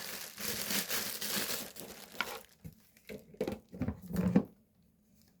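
Packaging crinkling and rustling as the humidifier's parts are unwrapped and handled, thinning after about two seconds into a few scattered knocks and clicks of parts being set down.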